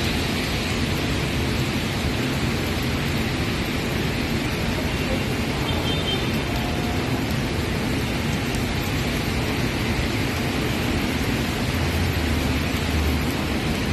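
Heavy rain pouring down in a steady hiss on a wet street and surrounding plants. A deeper low rumble builds in underneath near the end.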